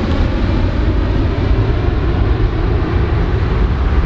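Large airplane's engines running, a loud, steady deep rumble with hiss above it.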